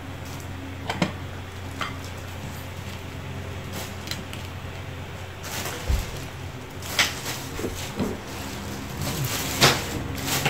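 A thin plastic bag crinkling and broken lobster shell pieces clicking as they are handled and tossed into it, in scattered short bursts over a steady low hum; the loudest crinkles come about two-thirds of the way in and near the end.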